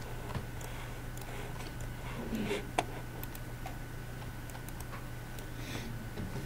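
A few light, irregular computer mouse clicks over a steady low hum, with one sharper click a little before the middle.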